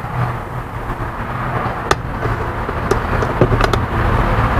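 A few sharp metallic clicks and knocks over a steady low hum: loose scrap motorcycle parts being handled. The knocks come about two seconds in and again near the end.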